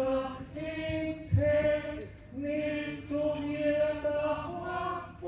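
Wind band playing a slow passage of long held chords, each note lasting about a second with short breaks between them, and a single low thump about a second in.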